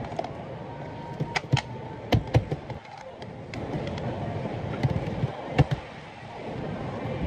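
Thick blended taro frappé being poured from a plastic blender jug into a plastic cup over boba pearls, with several sharp taps and clicks of plastic scattered through the pour.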